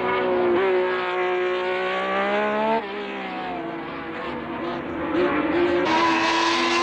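1970s Formula 1 racing engine revving at high speed. Its pitch climbs for about two seconds, falls away sharply about three seconds in and runs quieter, then comes back louder near the end.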